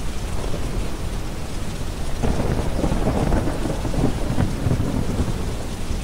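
A roll of thunder swelling about two seconds in and fading near the end, over steady rain and a deep, even brown-noise hiss.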